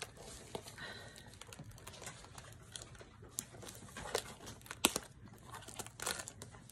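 Crinkling and tearing of the clear plastic wrap on a Funko mystery mini box as it is pulled open by hand, with a few sharp clicks, the loudest about four and five seconds in.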